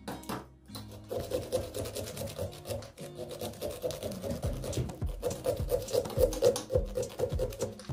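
Small serrated pumpkin-carving saw rasping through the pumpkin's rind and flesh in quick back-and-forth strokes, starting about a second in, over background music.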